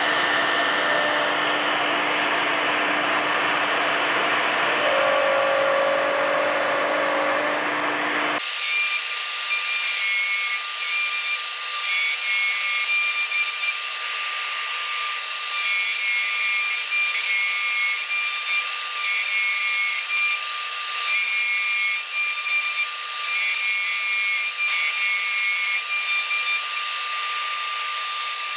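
Machine-mounted router spindle running steadily while it bores a hole into the end of a turned wooden cylinder, with the dust-extraction hose drawing air. About eight seconds in the sound changes abruptly: the low rumble drops out and a steady high whine remains.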